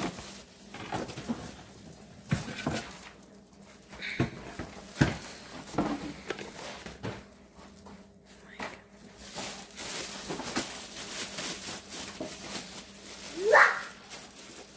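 Unboxing noises: a deep fryer is handled in its cardboard box and plastic bag, with scattered knocks and rustles, then plastic crinkling in the later part. A short rising squeak comes near the end.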